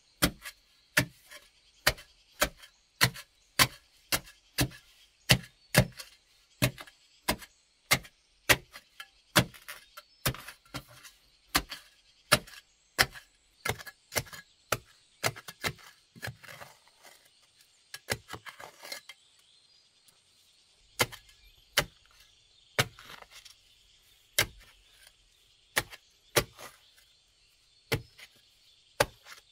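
A narrow metal digging blade on a bamboo handle stabbed repeatedly into hard, gravelly earth, sharp chopping strikes at roughly two a second. Around the middle the strikes stop for a few seconds of softer scraping in the loosened dirt, then the stabbing resumes at a slower pace.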